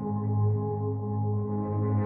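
Ambient background music made of long, held tones.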